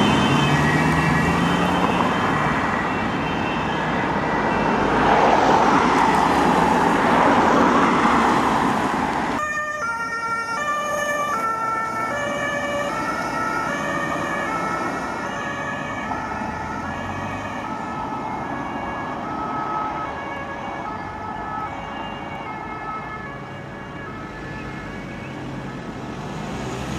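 German two-tone emergency horn (Martinshorn) on a fire service vehicle, alternating between its high and low notes as the vehicle drives away and slowly fades. In the first nine seconds or so it is mixed with the loud engine and tyre noise of emergency vehicles passing close by.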